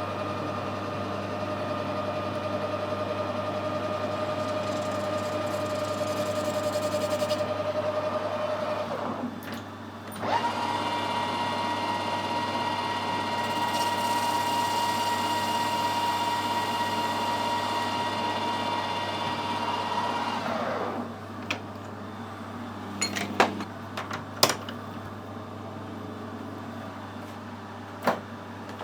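Metal lathe running with a steady whine over a constant low hum. It stops about nine seconds in and restarts a second later at a higher pitch, then winds down about twenty seconds in, leaving the hum and a few light clicks and taps.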